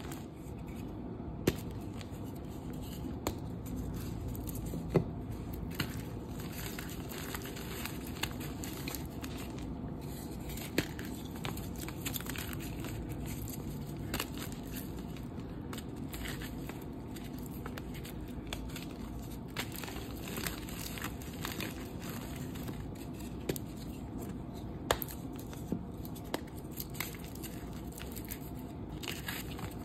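Hands crushing and crumbling dusty dyed gym chalk reforms: a continuous dry crunching and rustling of powder, with scattered sharp cracks as lumps break apart.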